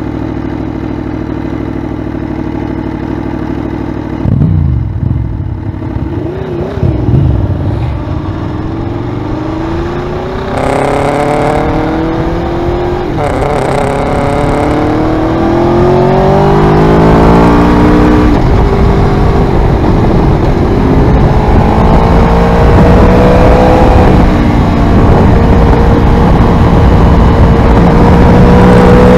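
Aprilia Tuono V4R's V4 engine through an Ozdany aftermarket exhaust, idling steadily, then revved about four seconds in as the bike pulls away. It then accelerates through the gears, the pitch climbing and dropping back at each upshift, and gets louder in the second half.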